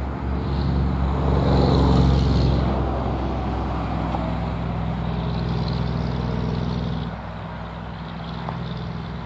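A motor vehicle's engine running, loudest about two seconds in and quieter after about seven seconds.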